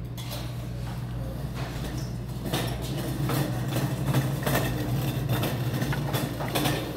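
Restaurant background noise: a steady low hum with scattered clicks and light clatter that grow busier about two and a half seconds in.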